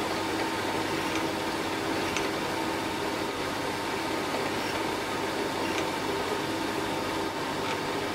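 Small milling machine running steadily with a countersink bit in its chuck: an even mechanical hum with a couple of steady tones, broken only by a few faint light ticks.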